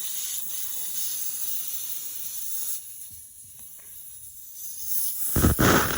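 Air hissing out of a car tyre's puncture hole, left open after the reaming tool is pulled out. The hiss eases after about three seconds, and near the end there is a brief, loud rushing noise.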